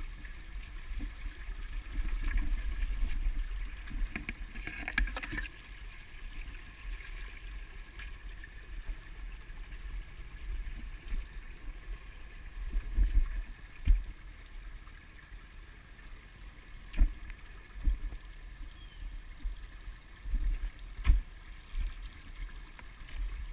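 A shallow rocky creek trickling, with footsteps sloshing and crunching over the wet stones of the streambed. A few short low thumps stand out, the loudest of them in the second half.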